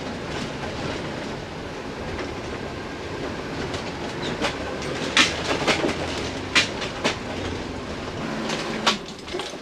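Steady road rumble inside a moving vehicle, with sharp rattles and clicks now and then in the second half.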